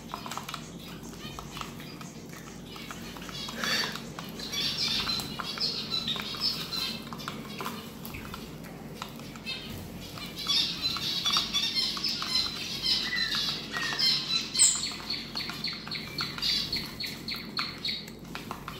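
A flock of small pet birds calling, a busy chatter of rapid high notes in two long bouts, with a single shrill call partway through the second one.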